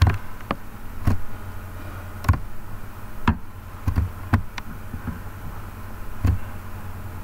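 A series of about ten sharp taps or knocks at irregular intervals, over a steady low hum.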